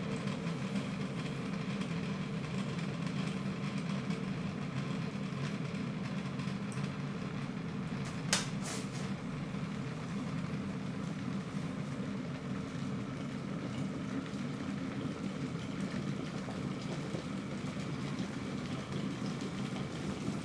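Glass electric kettle rumbling steadily as the water nears 100 °C and vapour bubbles begin to persist and rise: the approach to a full boil. A sharp click sounds about eight seconds in, and another at the very end as the kettle switches off.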